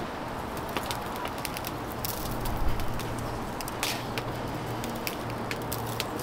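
Oak wood fire crackling, with scattered sharp pops and snaps over a steady hiss.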